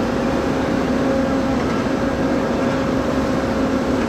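Engine running steadily at an even pitch, a constant low hum with a higher tone above it, over a rough low rumble.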